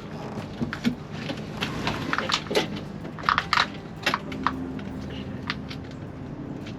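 Irregular clicks, knocks and scrapes of hands and tools working on a bilge pump's plastic base bracket in a cramped boat bilge, as it is fitted into place.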